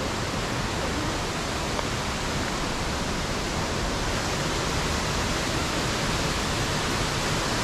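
Devi's Fall waterfall: a steady rush of water pouring down into the rock gorge and cave below.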